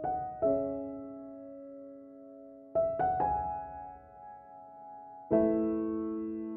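Slow background piano music: chords struck a few seconds apart, each left to ring and fade.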